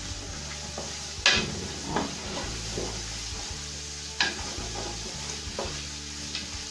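Diced bell peppers and onion sizzling in butter and olive oil in a large aluminium pot as a wooden spoon stirs them, with a few sharp knocks of the spoon against the pot, the loudest about a second in and again about four seconds in.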